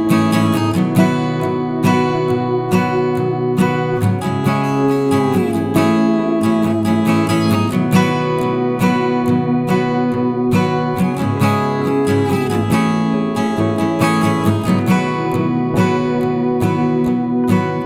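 Background music: strummed acoustic guitar with a regular rhythm and occasional sliding notes.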